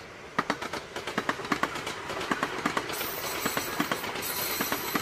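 A train passing on rails, its wheels sending out a rapid, irregular run of sharp clicks over a rushing noise that grows louder.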